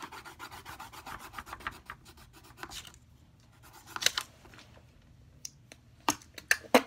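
Colored pencil scratching on paper in quick back-and-forth coloring strokes. A few sharper, louder clicks near the end.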